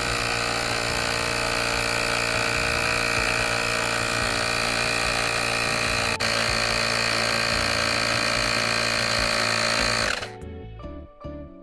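Portable electric air compressor running steadily while inflating, then cutting off abruptly about ten seconds in, leaving a few faint clicks and tones.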